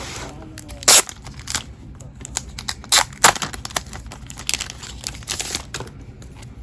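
Close handling of cardboard and paper packaging and its contents: several sharp snaps and taps, the loudest about a second in, with rustling and crinkling in between.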